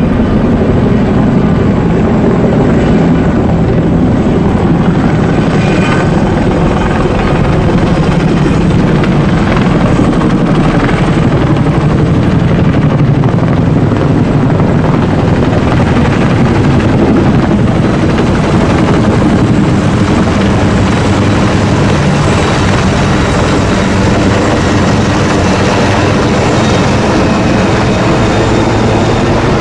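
Military helicopter flying past: loud, steady rotor and engine noise.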